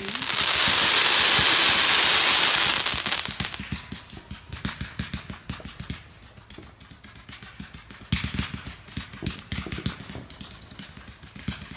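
Consumer firework going off: a loud, steady hiss for about three seconds, then rapid crackling pops, with another flurry of crackles about eight seconds in.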